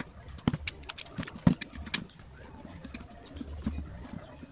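Sharp clicks and knocks of an electric planer's plastic housing and aluminium plate being handled, with a screwdriver set against a screw, several in the first two seconds, then fainter ticks.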